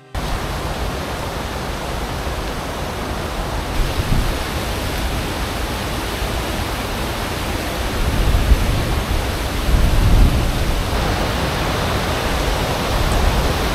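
Loud, steady rush of a mountain creek tumbling over cascades, a deep churning noise that swells a little about eight to ten seconds in.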